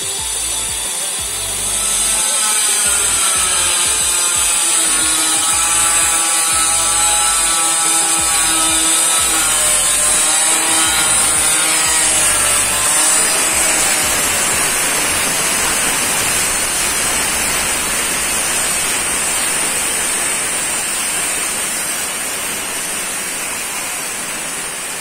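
Handheld electric stone cutter running at a high whine as its blade grinds through a jade-stone slab under water. About halfway through, the sound turns into a rougher, denser grinding.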